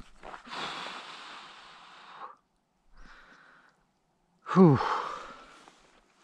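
A man breathing out hard in long breaths, then a loud sigh that falls in pitch about four and a half seconds in: he is out of breath from the effort of landing a fish.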